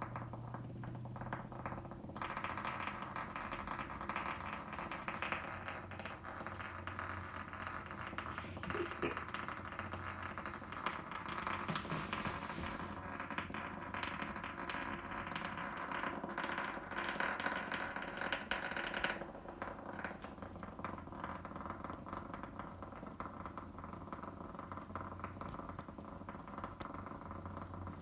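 Hexbug toy bug, driven by a tiny vibration motor, buzzing and rattling as it skitters over a hardwood floor: a fast, dry chatter. It gets louder a couple of seconds in and falls back to a fainter rattle after about nineteen seconds.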